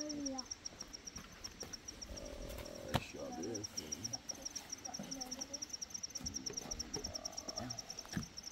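Insect chirping in a steady, rapid high-pitched pulse of about ten chirps a second, with a single sharp click about three seconds in.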